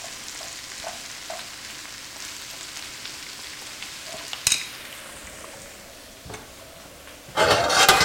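Thinly sliced onions sizzling in olive oil in a frying pan as they cook down toward caramelizing, stirred with a wooden spoon, with a few light scrapes and a sharp tap about halfway. Near the end, a brief loud clatter of cookware from a lower kitchen cabinet.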